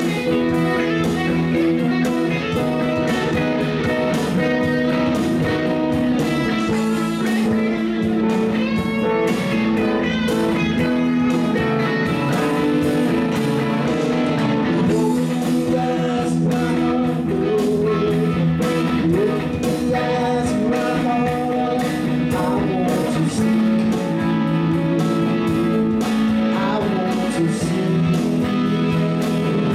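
Live band playing steadily: electric guitars over bass guitar and drums.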